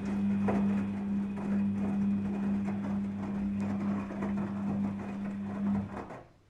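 Daewoo DWD-FT1013 washing machine running on a cotton 40°C wash: a steady, even-pitched motor hum with water sloshing and rattling, which stops about six seconds in.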